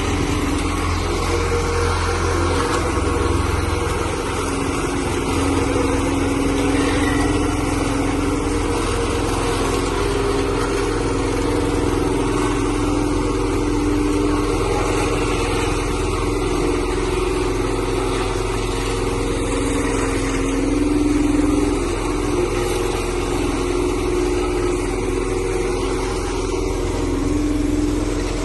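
Road roller's diesel engine running steadily, with a constant low hum and no sharp knocks or cracks.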